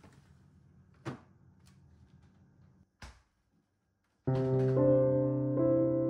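A refrigerator drawer is pushed shut with a soft knock about a second in, followed by a short sharp click near three seconds. After a moment of silence, piano music begins with held chords and is the loudest sound.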